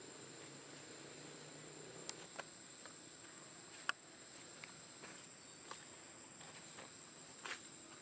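Insects trilling steadily on one high note, with a scattered handful of short clicks and rustles; the sharpest click comes about four seconds in.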